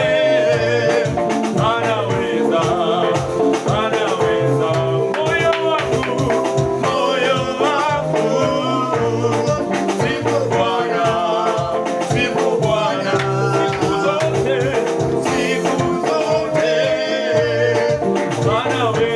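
Upbeat praise music: singing over a band with a steady, driving beat.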